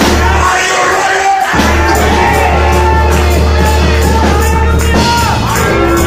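Loud church praise music: a held low bass note under singing and shouting voices from the congregation.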